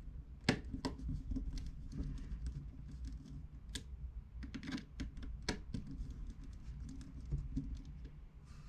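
Small irregular clicks, taps and scratches of a precision screwdriver and tiny screws being worked by hand, driving a bracket screw into an iPad mini 2.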